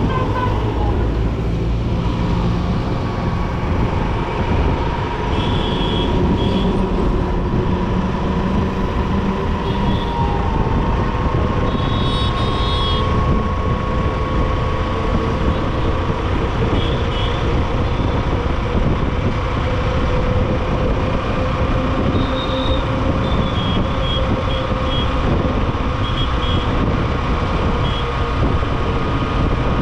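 Honda SP125's single-cylinder engine running steadily under way through dense city traffic, with road and wind noise at a helmet-mounted microphone. Short high beeps sound several times, in clusters about six, twelve and twenty-two to twenty-eight seconds in.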